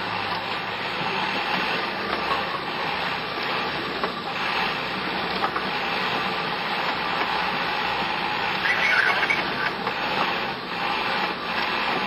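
Steady noise inside a four-wheel-drive's cab as it moves slowly over rough off-road ground, with a brief higher squeal about nine seconds in.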